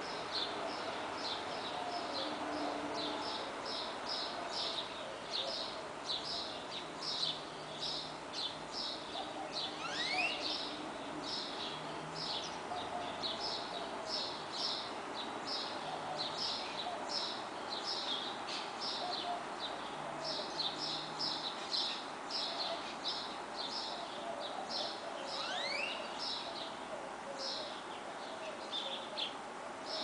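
Birds chirping, short high chirps a couple of times a second without a break, with a quick rising note twice. Underneath runs a steady hum of distant traffic.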